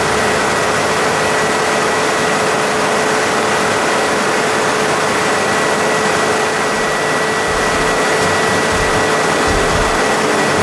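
Rans S6 light aircraft in flight, heard from inside the cockpit: its engine and propeller running steadily under loud wind and airframe noise, with a steady whine running through it.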